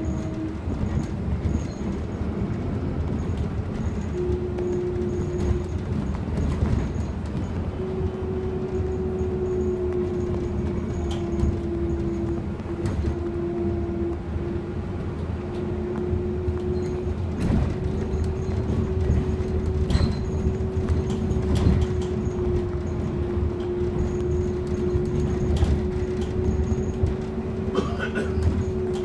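Cabin noise aboard an Iveco Urbanway 18 Hybrid articulated bus: a steady low rumble with scattered rattles and knocks. A steady hum-like tone comes in about four seconds in and holds, with small dips in pitch.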